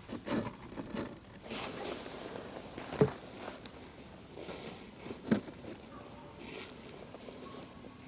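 Close handling noise: rustling and scraping, with two sharp knocks, the first about three seconds in and the second a couple of seconds later.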